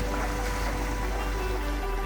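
Background music with long held notes, over a steady rush of flowing creek water.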